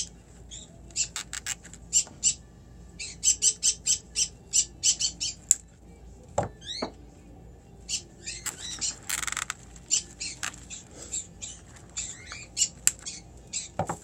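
Pet parrots squawking in quick runs of short, sharp calls, with a rising whistle about six and a half seconds in.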